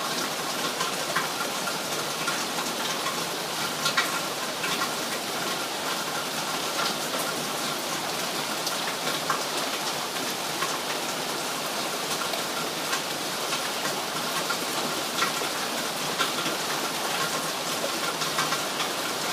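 Steady rain falling, with a dense hiss and many small drop ticks on hard surfaces, some drops louder than others.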